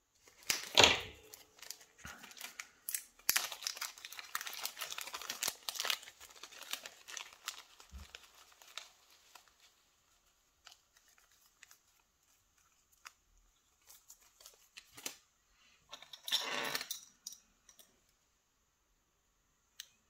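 Handling noise of small objects: irregular clicks, taps and rustles, busiest in the first half, then a short rustle about three-quarters through and a single click near the end.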